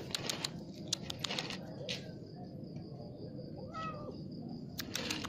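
A cat gives one short meow about four seconds in, amid scattered light clicks. A faint, steady high tone runs through the middle.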